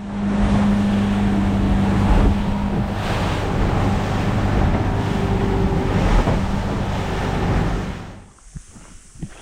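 Boat under way: its motor running at a steady pitch, with wind buffeting the microphone and water rushing past the hull. The run cuts off about eight seconds in, leaving a much quieter scene with a few small clicks.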